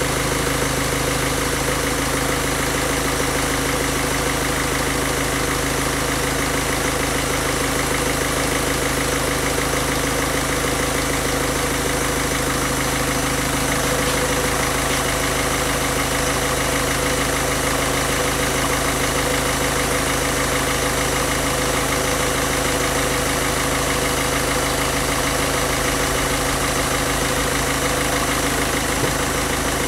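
Peugeot-Citroën 1.6 HDi common-rail diesel engine idling steadily, running on fuel drawn from a bottle through its fuel line during an injection-system cleaning.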